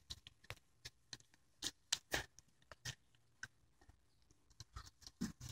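Faint, irregular clicks and scrapes of teeth on a bone as it is gnawed, spaced unevenly at a few per second.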